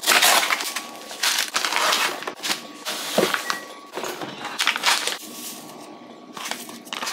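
Crinkling and rustling of an infant formula refill pack being handled and its powder poured into a Baby Brezza formula machine's plastic powder container, with light plastic knocks from the container's lid. The sounds come in a series of short irregular bursts.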